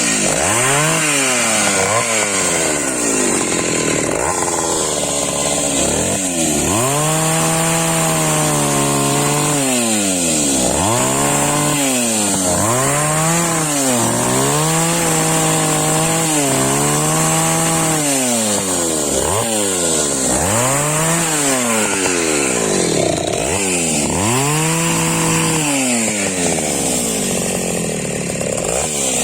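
Taiga 214 two-stroke chainsaw cutting firewood. The engine speed sags repeatedly as the chain bites into the wood and climbs back between strokes, many times over.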